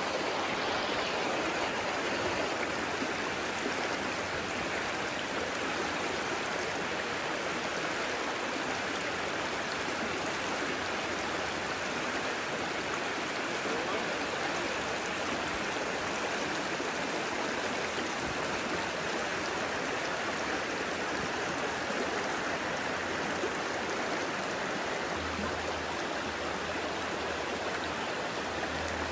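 Creek water running steadily over rocks, a constant rushing.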